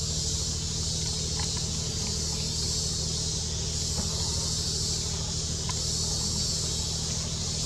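Steady outdoor ambience: a high, even hiss over a low steady hum, with a few faint ticks and no calls from the monkeys.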